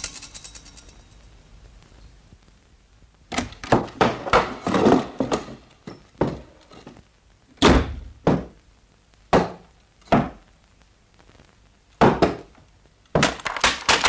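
Wooden ladder knocking and thudding as it is picked up, carried and stood against a wall: a run of hollow thunks, first in quick clusters, then single knocks about a second apart.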